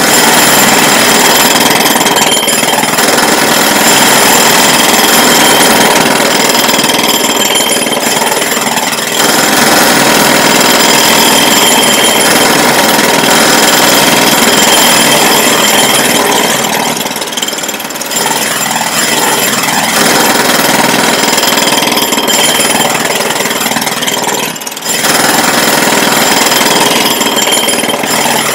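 Loud jackhammer hammering in long runs, broken by a few brief pauses.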